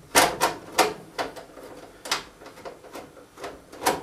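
Irregular sharp metallic clicks and taps, about a dozen in four seconds, as a 5/16 mounting screw is worked out of a furnace's sheet-metal blower assembly by hand.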